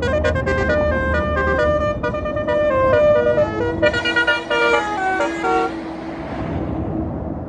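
Tour bus's Basuri telolet horn playing a fast melody of short, stepped notes, breaking off about six seconds in and leaving a steady rushing noise.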